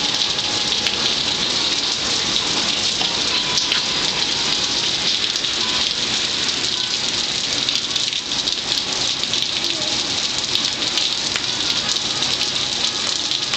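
Steady rain during a rain storm: an even hiss of falling rain with the sharp ticks of single drops striking the wet concrete balcony.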